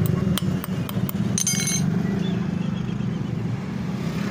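A hammer lightly tapping a thin steel strip on a steel block, about five quick taps in the first second, then a short metallic rattle with ringing about a second and a half in; the strip is being bent to the curve of a racket frame. Under it runs a steady low engine rumble.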